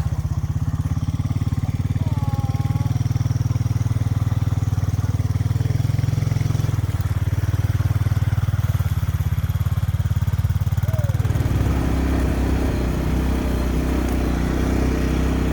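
Quad (ATV) engine running steadily at low speed, its note changing about eleven seconds in.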